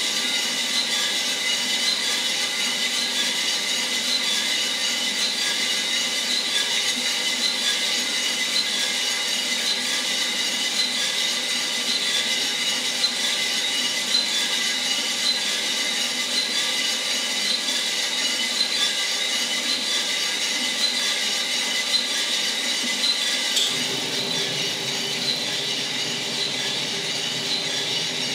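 Coffee drum roaster running mid-roast: the drum turning with beans tumbling inside, over steady motor and fan noise with a faint whine. About 24 seconds in, a deeper hum comes in.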